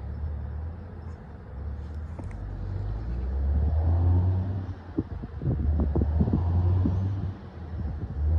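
Kenworth W model truck's diesel engine rumbling low, growing louder over the first few seconds, with an uneven pulsing in the middle stretch and brief dips about five seconds in and near the end.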